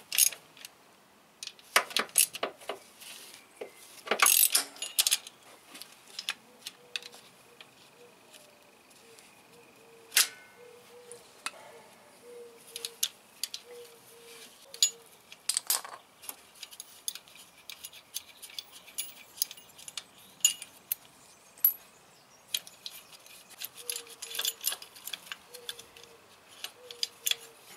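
Metal tools and engine parts clinking and clicking in short, irregular taps as a wrench and gloved hands work the timing-belt tensioner pulley and its bolt, with a few louder clinks scattered through.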